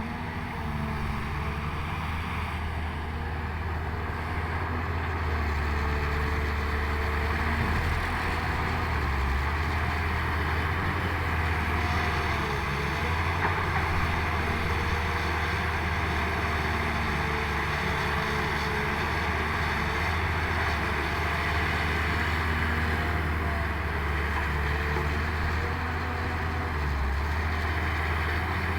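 Heavy earthmoving machinery's diesel engine running steadily for the whole stretch, a deep low drone with mechanical noise above it.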